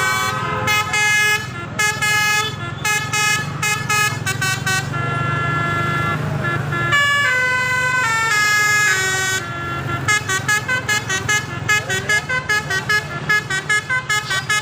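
Basuri telolet musical horn with roof-mounted trumpets playing a melody: quick short honked notes stepping up and down in pitch, a longer stepped falling run about seven to nine seconds in, then rapid staccato notes again. A low steady hum runs underneath.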